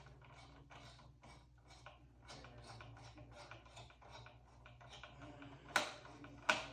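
Screwdriver with an extension turning out a small heatsink screw inside a desktop PC: a steady run of light clicks, about three a second, with two louder sharp clicks near the end.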